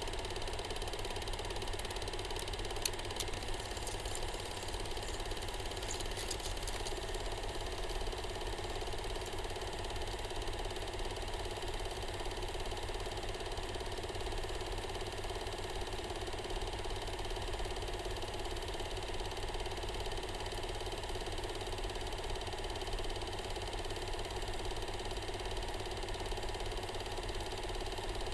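Film projector running steadily: a continuous mechanical whir and hum from its motor and film transport, with a few faint clicks about three and six seconds in.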